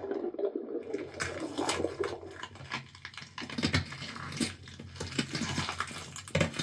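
Horror sound effects of writhing, bone cracking and flesh tearing: a dense, irregular run of cracks and crackles over a rustling, fleshy noise.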